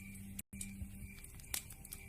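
Wood fire crackling: scattered sharp pops and snaps over a steady low hum and hiss. The sound cuts out for an instant about half a second in.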